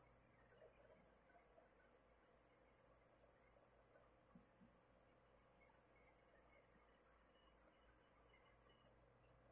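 Faint, steady high-pitched insect buzzing with no pauses, cutting off suddenly near the end.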